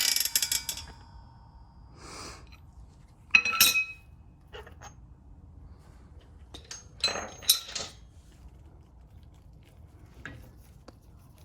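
Steel tools and transmission parts clinking and clanking as they are handled and set down: a loud clatter with a ringing tail at the start, another ringing clink about three and a half seconds in, and a few clanks around seven to eight seconds in.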